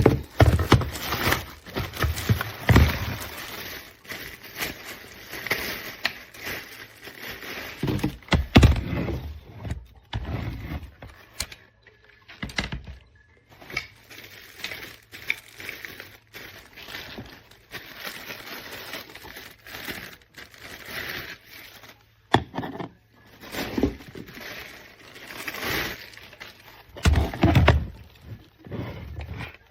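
Irregular handling noises: knocks, scrapes and rustling, coming in uneven bursts with short lulls between. No steady vacuum motor is running.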